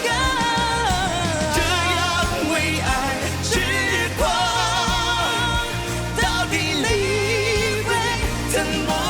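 Pop ballad with band accompaniment: held, wordless sung notes with vibrato over steady bass and full instrumental backing.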